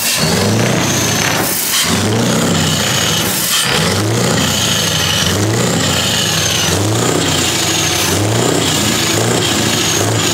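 Diesel truck engine revved in quick repeated blips, about one and a half a second, through a side-exit exhaust pipe.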